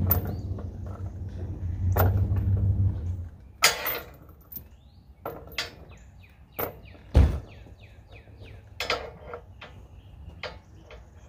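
A steady low motor hum for about the first three seconds, then scattered metal knocks and clanks from the chain hoist holding a black walnut log, the loudest a heavy thump about seven seconds in. Birds chirp throughout.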